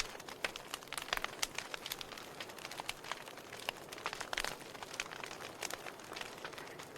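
Fireplace fire crackling: irregular sharp pops and snaps, several a second, over a soft steady hiss.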